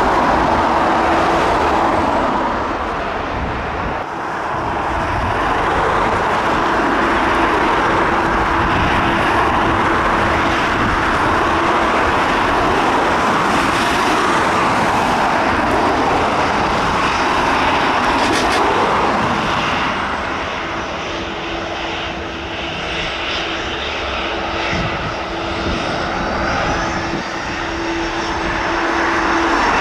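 Airliner engines running loud and steady, a rushing noise with a steady hum through it, easing off briefly about four seconds in and again for a few seconds past the middle.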